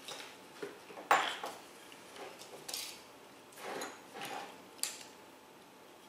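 Small metal parts and hand tools being handled on a worktable: a handful of sharp clinks and short rattles, the loudest about a second in.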